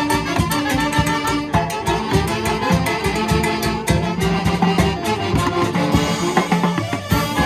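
A dance orchestra playing upbeat music with a steady percussive beat.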